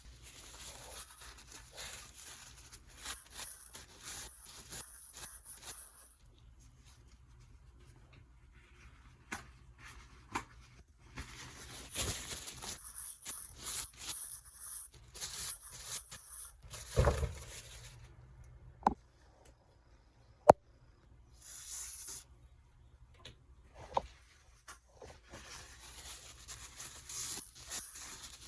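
Hand work on a bicycle's adjustable bottom bracket parts: stretches of scraping and rubbing, broken by scattered sharp clicks and knocks, a few of them loud.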